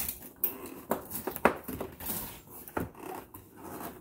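Metal crossbar pole knocking and clicking against the pirate ship prop's metal frame as it is fitted into place: a series of sharp, irregular knocks.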